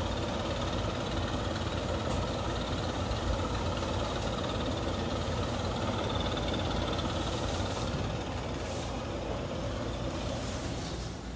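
Gas leaf blower running steadily as dust is blown around the yard, turning a little quieter near the end.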